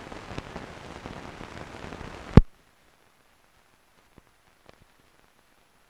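Hiss and crackle from an old newsreel film soundtrack. It ends about two and a half seconds in with a single sharp click as the sound cuts off. After that there is near silence, with a few faint scattered clicks.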